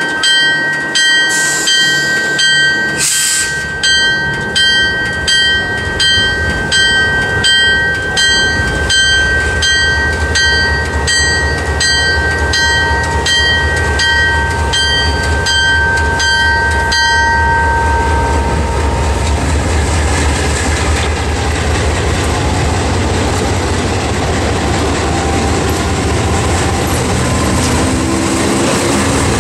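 Alco C-424 diesel locomotive passing slowly with its bell ringing at about two strokes a second. The bell stops about 17 seconds in, while the diesel engine's low rumble and the rolling of the wheels grow and hold as the locomotive goes by.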